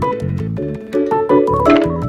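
Background music: an upbeat tune with bouncy pitched keyboard-like notes over a steady bass line and beat.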